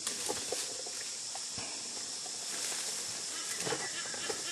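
Steady high chorus of insects, with scattered crackles and snaps of brush and branches as elephants browse in the bushes.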